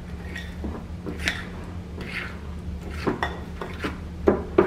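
A metal fork stirring thick brownie batter in a clear glass bowl: irregular clinks and scrapes of the fork against the glass, with two louder knocks near the end.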